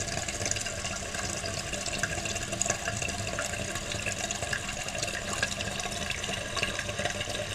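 Toilet tank refilling: water runs steadily into the tank through the fill valve.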